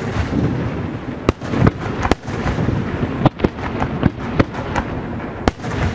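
Aerial fireworks shells launching and bursting: a quick, irregular series of sharp bangs and cracks, about nine in six seconds, over a continuous low rumble.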